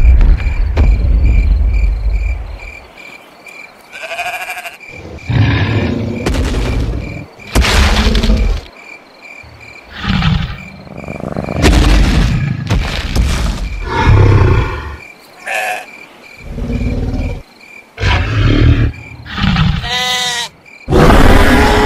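Dinosaur roar sound effects: a run of deep roars, growls and snorts in bursts of one to two seconds, over crickets chirping steadily about twice a second. About twenty seconds in, a sheep bleats with a quavering voice.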